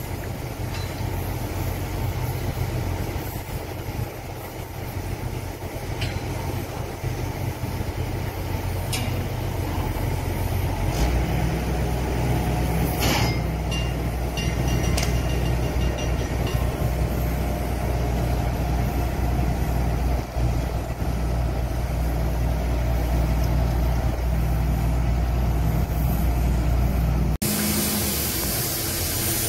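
Heavy engine running steadily with a deep rumble that grows louder about eleven seconds in, with a few sharp clicks or knocks over it. Near the end the sound changes abruptly to a hissier, windier noise.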